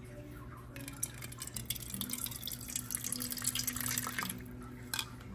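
Water running from a lever tap into a drinking glass, splashing as the glass fills. It starts about a second in and stops about a second before the end.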